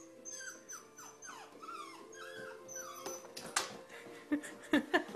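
Dog whining in a run of short, high cries, then paws knocking on wooden stair treads, with several sharp thumps near the end as a dog moves on the steps.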